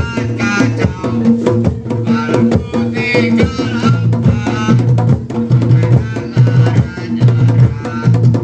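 Traditional Javanese Bantengan accompaniment music. Fast hand-drum strokes play over a repeating low pitched pulse, with a wavering high melody above.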